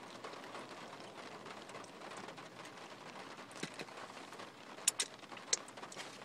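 Quiet chewing of fried chicken over a faint steady hiss, with a few sharp mouth or handling clicks in the second half.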